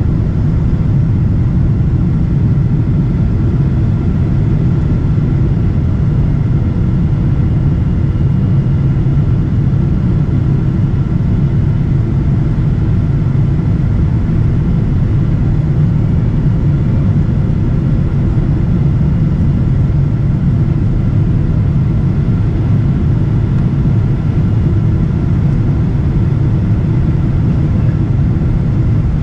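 Boeing 777-200ER cabin noise in flight: a loud, steady low rumble of engines and airflow, with a faint steady whine above it and no change throughout.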